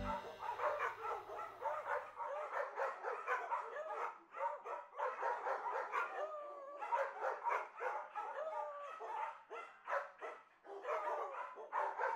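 Puppies squeaking and whimpering, many short, high cries overlapping one another.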